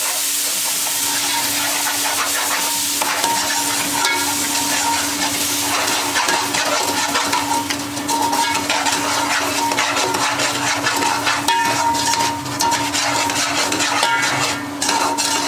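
A metal slotted spoon scraping and stirring a granular mixture frying in an aluminium cooking pot, with a continuous sizzle and repeated scrapes against the pot, over a steady hum.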